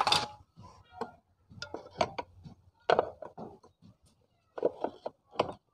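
A string of irregular short knocks and clinks as metal parts are handled against a motorcycle engine's aluminium crankcase.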